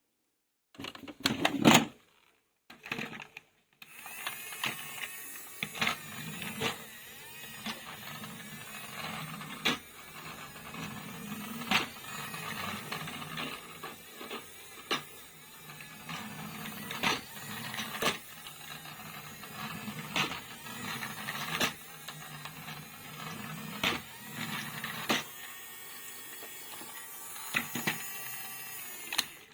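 A small motor whirring steadily, broken by irregular clicks and knocks; a short louder rattle comes about a second in.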